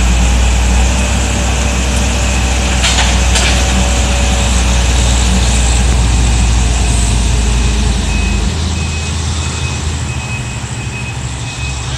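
Heavy diesel engine of an excavator running steadily, with two sharp metal clanks about three seconds in. Near the end the engine drops lower and a reversing alarm beeps about twice a second.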